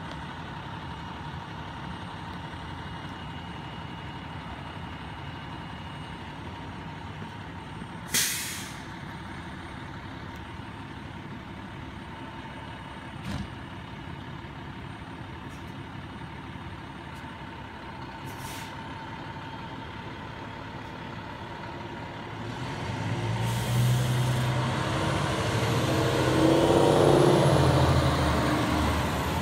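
Fire engine's diesel engine idling steadily, with a sharp hiss of its air brakes being released about eight seconds in. In the last several seconds the engine revs up and grows louder as the truck pulls away and passes close by.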